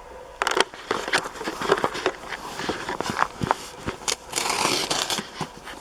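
Cardboard box being opened by hand: a run of crackles, scrapes and clicks, with a longer tearing sound about four and a half seconds in.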